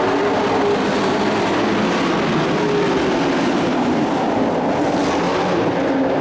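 Engines of dirt-track race trucks running hard as the field goes by, the engine pitch falling about two seconds in and climbing again toward the end.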